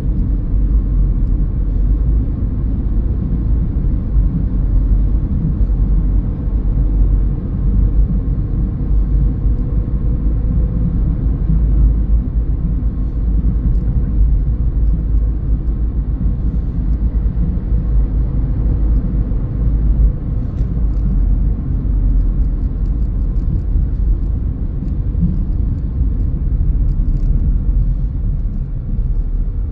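Car driving along, a steady low rumble of tyres and engine on the road, with a few faint ticks near the end.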